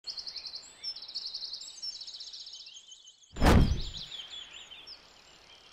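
Birds chirping and trilling in quick high runs, broken about three and a half seconds in by a single sudden loud swoosh with a deep thud, a transition effect laid over the cut.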